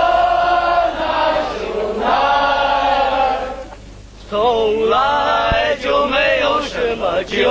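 A crowd of students' voices chanting together in unison, in long drawn-out phrases, with a short break about four seconds in.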